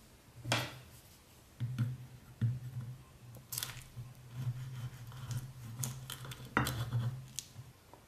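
Serrated knife and fork cutting through a Twix bar in sauce on a china plate: sawing and scraping, with a few sharp clinks of metal on the plate, the loudest about half a second in and again near the end.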